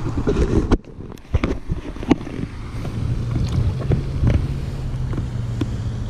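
Pond water sloshing and splashing around a hand-held largemouth bass as it is held in the water for release, with a few small splashes in the first two seconds. A steady wind rumble sits on the microphone.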